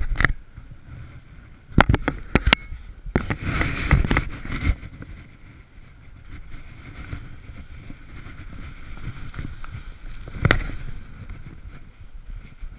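Skis scraping and chattering over rough, chunky snow on a downhill run, with a few sharp knocks about two seconds in, a loud scraping stretch just after, and another knock later on.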